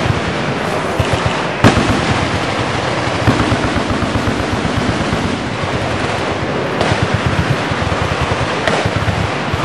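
Dense, rapid gunfire from many firearms shooting at once, including automatic weapons, the shots overlapping into a continuous crackle. One louder, sharper shot stands out about a second and a half in.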